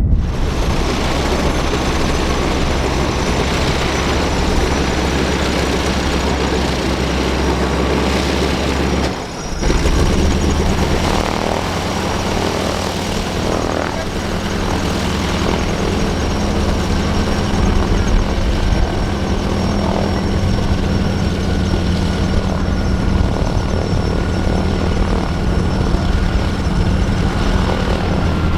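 North American T-6 Texan (Harvard) nine-cylinder Pratt & Whitney R-1340 Wasp radial engine running steadily, with its propeller turning. About nine seconds in, the sound drops out for a moment and then comes back at a slightly different pitch.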